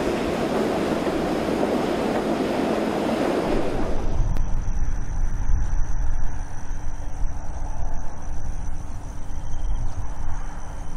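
Sugar cane tramway train of empty cane bins hauled by a diesel locomotive running past with a steady rumble and rattle, which stops abruptly about four seconds in. After that comes gusty wind on the microphone with a faint steady high whine.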